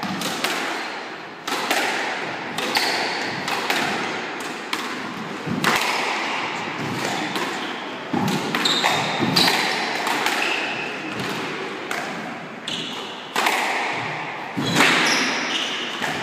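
A squash rally: the ball cracking off rackets and the court walls in irregular sharp hits, each ringing on in the court's echo, with short squeaks of court shoes on the wooden floor.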